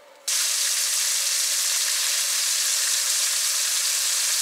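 Small ripus (vendace) frying in oil in a pan on a portable gas stove: a steady sizzle that cuts in suddenly about a third of a second in.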